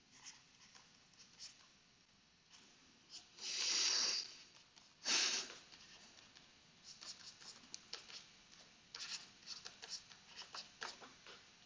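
Faint ticks and scratches of a stylus writing on a tablet screen, coming thickly in the second half. A few seconds in there are two louder, soft rushes of noise.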